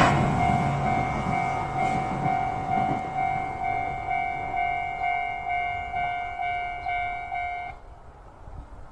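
Japanese level-crossing warning bell ringing, a steady pitched ding repeating about twice a second, over the fading rush of a passing E6 series Komachi train. The bell stops abruptly near the end, as the crossing clears after the train has gone by.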